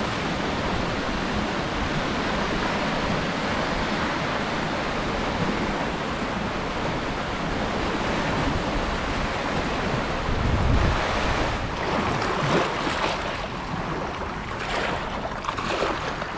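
Fast tidal current rushing and churning past shoreline rocks, a steady loud rush of water, with wind buffeting the microphone. About two-thirds of the way in it gives way to small waves splashing and washing over rocks and pebbles at the water's edge.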